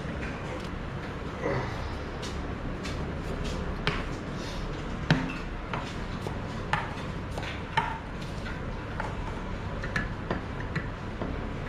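Spoon and cup clinking and tapping while coffee is made: irregular light clinks, with one sharper knock about five seconds in, over a steady low hum.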